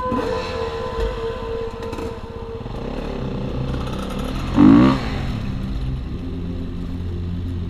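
KTM enduro dirt bike engine running as the bike rides along a forest trail, with one sharp rev rising and falling about halfway through.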